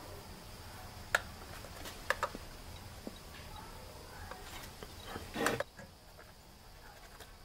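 Faint handling noise from current-sensor clamps and their cables being worked inside an electrical panel: a sharp click about a second in, a quick double click a second later, and a brief scuff about five seconds in.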